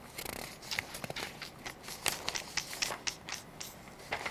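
Sheets of paper rustling and crackling as pages are handled and leafed through, a run of irregular crinkles.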